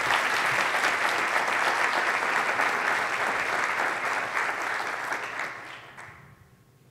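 Audience applauding, the clapping fading out about six seconds in.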